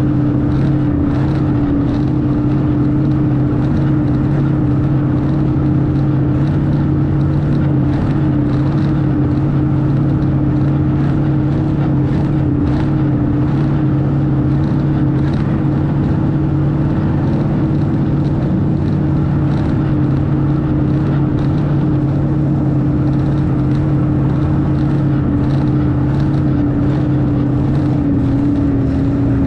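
Snowmobile engine running at a steady speed under way, with a constant hum and a haze of track and wind noise; the pitch dips slightly near the end.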